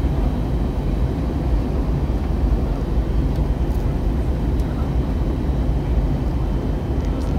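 Steady low roar inside the cabin of an Airbus A320neo on approach: engine and airflow noise at the window seat, with a couple of faint ticks.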